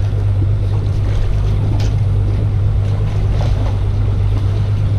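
Boat engine running with a steady low hum, over wind and water noise.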